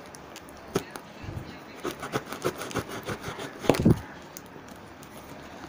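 A parcel being handled and opened by hand: a run of sharp clicks, crackles and scrapes from packaging, loudest a little before the 4-second mark, then it settles.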